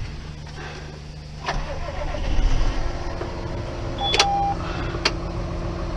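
Tractor engine running steadily, getting louder about a second and a half in. A short beep sounds about four seconds in, followed by two sharp clicks.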